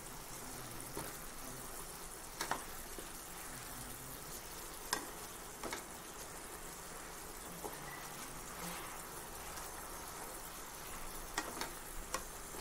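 Chicken pieces bubbling and sizzling in a soy-sauce braise in a non-stick wok as the liquid reduces, with a spatula stirring them and knocking lightly against the pan a few times.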